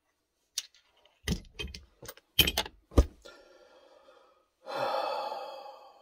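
Several sharp knocks and clatters as small propane fittings and hose are handled and set down, the last one ringing briefly. A long heavy sigh follows near the end.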